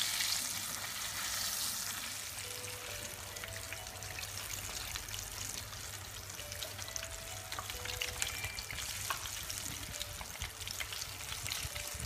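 Battered cempedak fritters deep-frying in hot oil: a steady sizzle with fine crackling bubbles, the fritters still cooking and not yet done.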